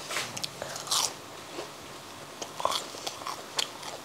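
Biting and chewing a crisp, freshly fried medu vada: a string of sharp crunches, the loudest about a second in.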